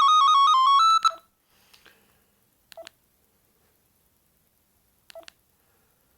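Bird S296 mobile phone playing a beeping electronic ringtone melody that cuts off about a second in, followed by two short keypad tones as its buttons are pressed.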